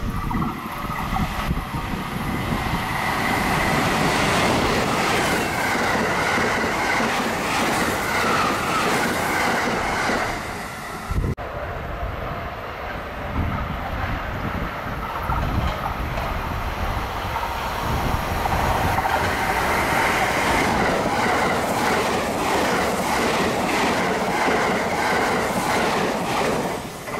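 JR limited express electric train running through a station at speed, a loud rush with the wheels clacking over the rail joints. About eleven seconds in, the sound cuts abruptly to a second passing train, which swells again and falls away near the end.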